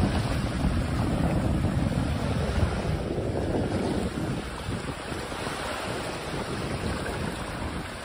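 Small sea waves washing in over a shallow shore and splashing against the rocks of a stone jetty, a steady wash of surf that eases a little about halfway through.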